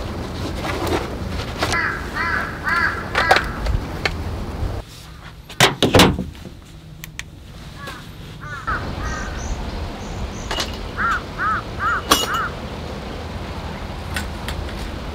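Crows cawing in two runs of about four caws each, over wind noise on the microphone. A few sharp knocks come in a quieter stretch about six seconds in.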